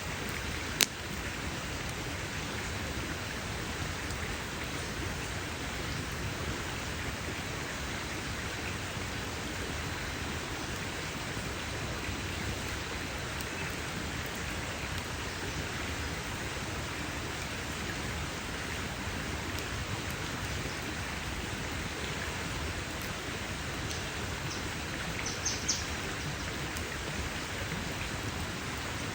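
Wood fire crackling steadily, with one sharp loud pop about a second in and a quick few pops near the end.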